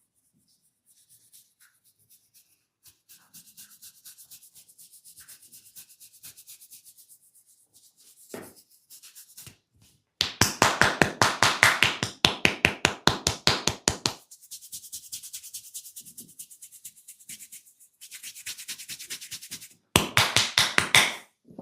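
Fingernails scratching and rubbing over a scalp and hair in soft, quick strokes. Twice the hands switch to rapid, loud tapping on the head, about seven or eight strikes a second: once for about four seconds midway, and once briefly near the end.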